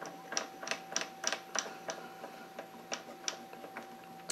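Short sharp clicks and taps, irregular, about three a second at first and then fewer, from lathe tooling being handled while the chucks are changed, over a faint steady hum.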